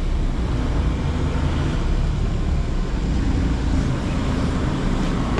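Steady vehicle engine and road noise with a strong low rumble.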